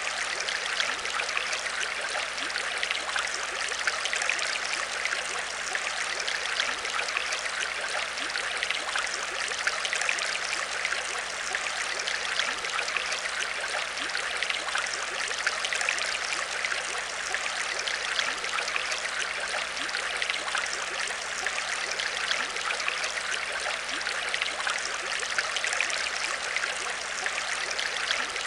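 Aquarium water trickling and splashing steadily, a continuous rush full of small droplet and bubble sounds.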